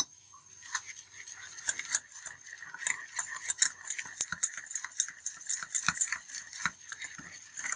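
Wire whisk beating a thick flour batter in a stainless steel bowl: a quick, irregular run of clicks and scrapes as the wires strike the sides of the bowl.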